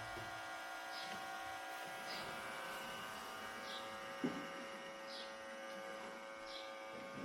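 iRobot Roomba j7+ robot vacuum running: a steady electric motor whine of several held tones, with faint high chirps every second or so and a single sharp click about four seconds in.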